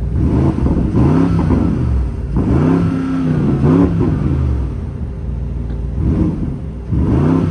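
2024 Porsche Cayenne Turbo S's twin-turbo V8 exhaust in Sport Plus mode, revved at a standstill: about five throttle blips, each rising and falling in pitch, with a short pause in the middle.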